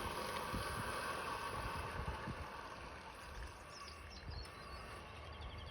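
Outdoor background hiss with wind buffeting the microphone, fading away over the first seconds. A few faint bird chirps come in a little under four seconds in.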